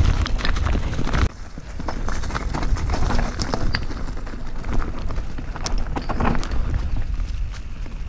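Mountain bike tyres rolling over loose stones and dry leaves, a dense clatter and crunch. About a second in it drops suddenly to a quieter rolling crunch with scattered clicks over grassy, twig-strewn ground.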